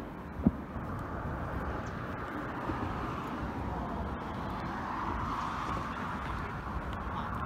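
Steady outdoor noise of distant road traffic, swelling a little in the second half, with a single sharp click about half a second in.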